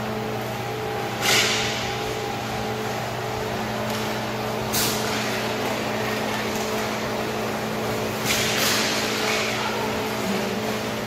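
Inline hockey play: a few sharp clacks of sticks and the plastic puck, the loudest just over a second in and a longer scraping one near the end, over a steady hum.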